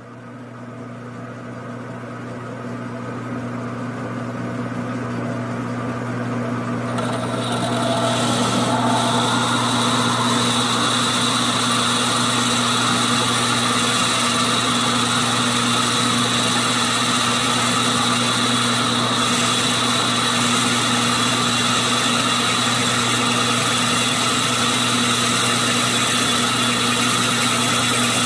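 Grizzly G9972Z metal lathe running, a twist drill in the tailstock chuck boring into a spinning brass part. A steady hum with a higher whine, growing louder over the first eight seconds or so and then holding even.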